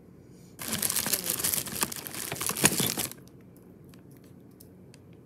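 Clear plastic packaging being handled and crinkling: a loud, dense crackle starting about half a second in and stopping after about two and a half seconds, followed by a few faint ticks.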